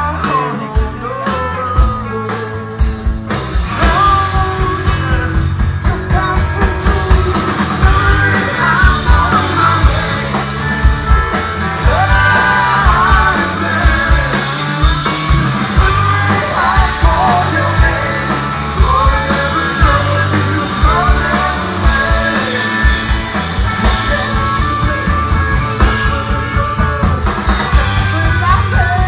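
A rock band playing live: electric guitars, electric bass and drums, with a man singing over them.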